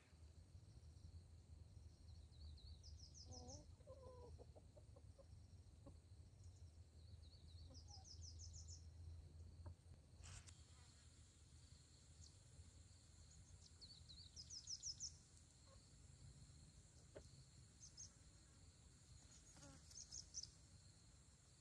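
Faint farmyard ambience: a chicken clucks briefly about three to four seconds in, and a small bird gives short rising chirp trills four times, over a low steady hum. There is a single sharp click about ten seconds in.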